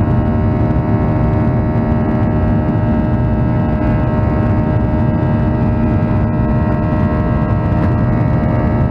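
Steady hum of a Boeing 737-900ER's CFM56-7B turbofan engines heard inside the cabin during the climb: a low rumble with many steady tones layered above it.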